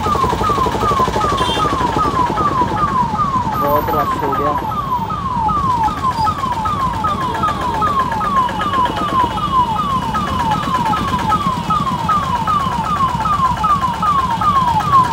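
An electronic alarm repeats a short falling tone about two and a half times a second, without a break, over steady traffic and engine noise.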